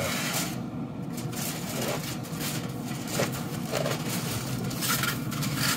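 Aluminium foil crinkling in irregular rustles as it is peeled back off a pan of brisket, over a steady low mechanical hum.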